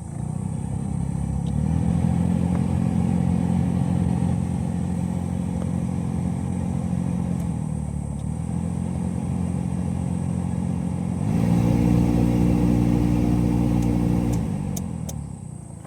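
A car's cabin blower fan motor switched on, running with a steady humming whir that dips briefly, gets louder about eleven seconds in, then winds down near the end. The abnormal blower noise comes from a door-lock pin lodged inside the blower.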